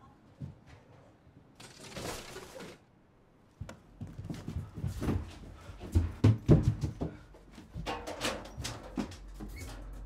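Irregular knocks, thumps and scuffs in a small room, with a brief hiss about two seconds in; the knocking grows busier and louder from about four seconds in.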